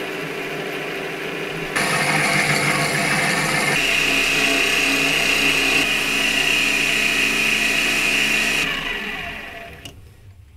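Mini lathe running under cut as a boring bar machines the inside of a metal ring: a steady motor and gear whine with a high steady tone and cutting noise. Near the end the spindle winds down, the pitch falling away.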